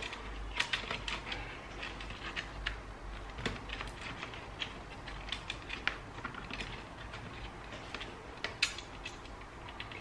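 Small irregular clicks and taps of laptop parts being handled and fitted by hand during reassembly, with a few sharper clicks about half a second, three and a half, six and eight and a half seconds in.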